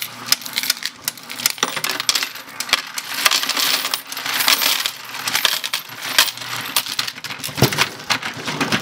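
A generous pour of mixed coins from a glass jar into the hopper of a Royal Sovereign FS-500 electric coin sorter: a dense, continuous clatter of coins striking and jostling in the hopper.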